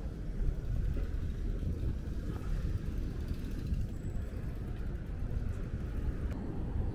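City street ambience: a steady low rumble of road traffic with no distinct events.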